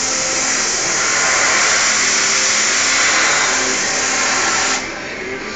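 Loud, steady rushing hiss of air from the Hermle milling machine's work area, cutting off suddenly about five seconds in.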